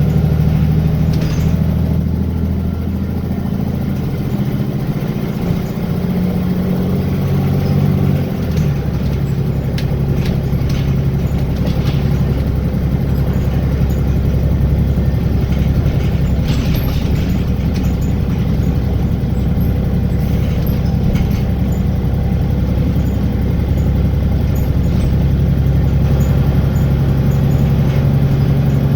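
Wright Gemini 2 double-decker bus on a VDL DB300 chassis, engine and drivetrain heard from inside the moving bus. The engine's steady note changes about eight seconds in to a rougher rumble and comes back as a steady note near the end, with a few short clicks and rattles around the middle.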